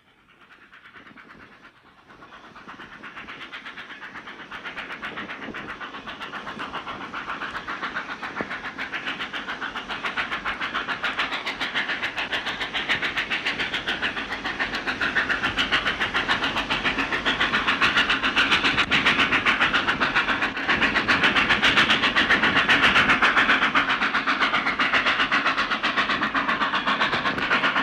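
Steam locomotive approaching at speed, fading in from silence and growing steadily louder, with a fast even beat.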